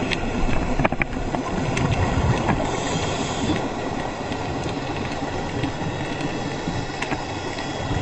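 Underwater noise picked up by a camera: a steady low rumble of moving water with scattered sharp clicks.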